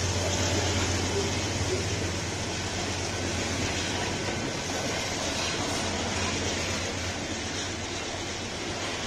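Freight train of covered hopper wagons rolling past at close range: a steady rumble and clatter of steel wheels on the rails, easing slightly in loudness.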